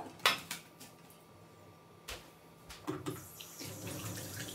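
A metal mixing bowl knocking down onto a kitchen counter, then a few seconds in a kitchen tap starts running steadily.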